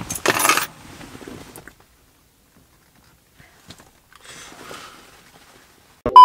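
A short clatter and rustle about half a second in, with faint handling noises after, like keys or coins being fumbled. Near the end a loud steady test-pattern beep cuts in, the reference tone that goes with TV colour bars.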